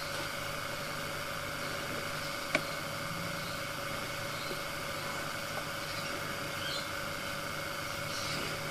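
A small electric motor running with a steady hum made of several fixed tones, and a single sharp click about two and a half seconds in.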